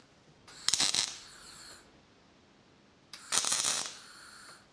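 Two brief tack welds with a wire-feed welder on the worn retaining pins of a Caterpillar D6C thermostat, each a short crackling arc of about half a second: one near the start, one about three seconds in.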